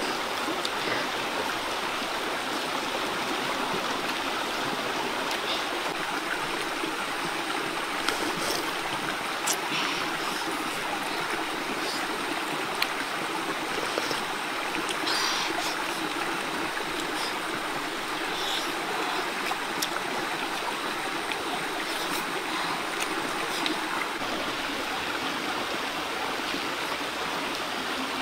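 Shallow rocky stream flowing: a steady rush of running water, with a few brief clicks over it.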